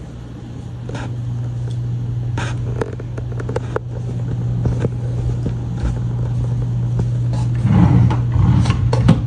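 A steady low hum runs under scattered rustles, scrapes and light knocks as a phone is carried and handled, growing busier near the end.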